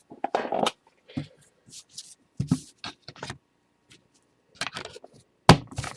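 Trading cards and their plastic holders being handled: short scrapes and rustles, with a sharper tap near the end.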